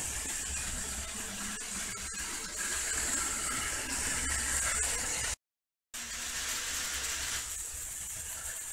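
Battery-powered Plarail toy trains running on plastic track: a steady motor whir with scattered clicks of the wheels over the track joints. The sound cuts out completely for about half a second just after the middle.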